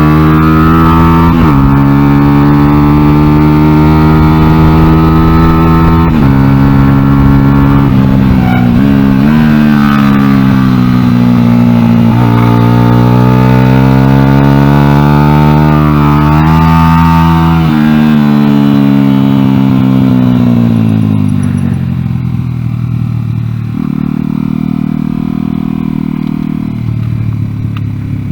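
Honda XR100 single-cylinder four-stroke engine in an NSF100 pit bike under way, its pitch climbing and dropping back several times as it runs through the gears. After about two-thirds of the time it winds down and settles to a low, steady running speed.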